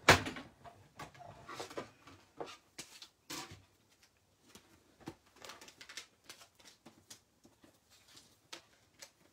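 Manual die-cutting and embossing machine with an embossing folder being run through its rollers between the cutting plates: a sharp knock at the start, then scattered clicks and short knocks.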